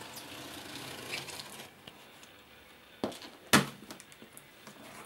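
Packing tape being scraped and pulled off a cardboard shipping box, a rasping, crinkling noise, then a click and a louder sharp snap about three and a half seconds in as the tape or cardboard gives way.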